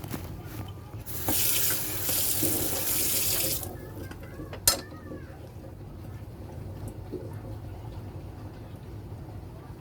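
Water running from a kitchen tap for about two seconds, then stopping, followed a little later by one sharp click or knock.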